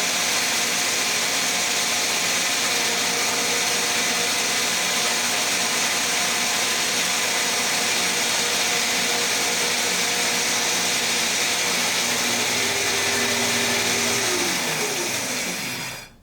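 Shopsmith bandsaw running steadily. Near the end it is switched off, and the motor's pitch falls as it spins down to a stop.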